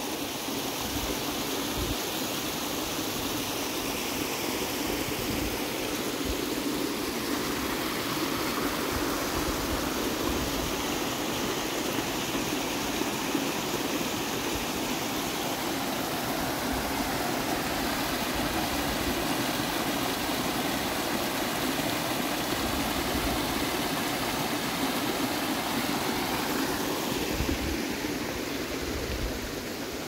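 Small mountain creek running steadily over rocks and fallen logs, a continuous rushing and trickling of water, with occasional low thumps underneath.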